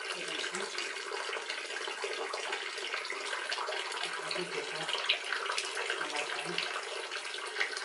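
Water flowing over the rock inside a small cave: a steady, even watery hiss.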